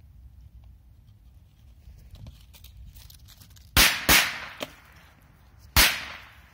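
Three Golden Dragon Korsar-1 firecrackers exploding: two sharp bangs in quick succession a little past the middle, then a third about a second and a half later.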